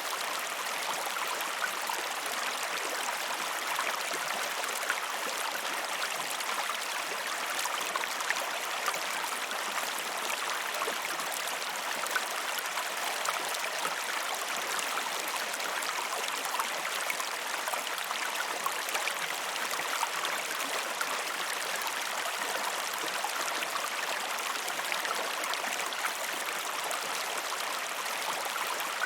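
Small stream flowing steadily, water burbling and trickling over stones.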